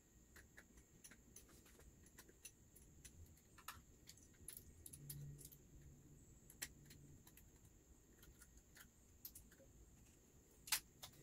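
Faint, scattered metallic clicks and light jingling from throttle cables and their small metal fittings being handled at a motorcycle carburetor, with one sharper click just before the end.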